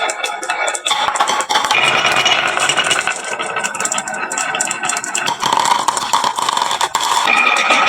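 Many marbles clattering and rattling as they roll down a wooden HABA marble run, a dense stream of small clicks.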